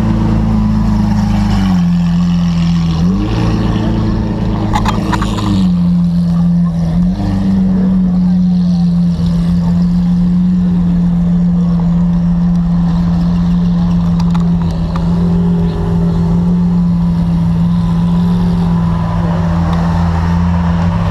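Supercar engines, a Lamborghini Aventador's V12 and then a Lamborghini Huracán's V10, running at low revs as the cars crawl past one after another. A deep, steady engine drone that steps up and down in pitch a few times in the first six seconds, then holds steady.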